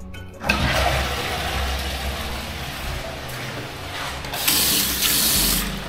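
Toilet flushing: a sudden rush of water starts about half a second in and runs on, turning louder and hissier near the end.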